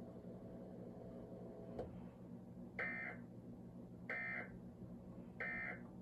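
Three short warbling data-tone bursts, about a second apart, played through a TV speaker: the Emergency Alert System end-of-message codes that close the required monthly test.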